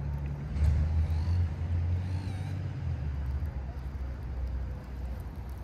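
Low, uneven outdoor rumble, loudest in the first few seconds, with two short, faint, high warbling chirps about one and two seconds in.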